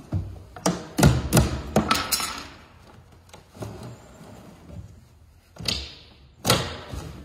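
Sharp knocks and thumps of a wooden shipping crate's side panel being knocked and worked loose with a hammer: a quick run of knocks in the first two seconds, then a few single thumps.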